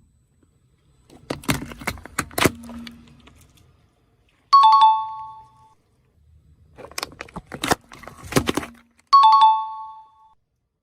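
Crisp cracking and snapping of objects being crushed under a car tyre, each bout followed by a short two-note ding-dong chime; the pattern happens twice.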